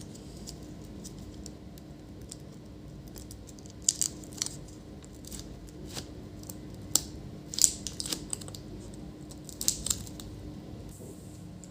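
Light clicks and plastic taps from a replacement laptop display panel and its connector being handled and fitted. The sharpest clicks come in small clusters about four seconds in, near the middle and near the end, over a steady low hum.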